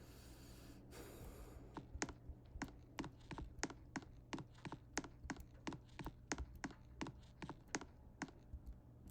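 Footsteps on a hard floor, about two a second, over a steady low hum.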